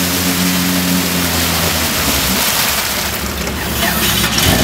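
Jeep Cherokee's engine held at high revs while its wheels spin in deep mud and water, over loud splashing and spray. About two seconds in the engine note drops away and the rushing, splashing noise carries on.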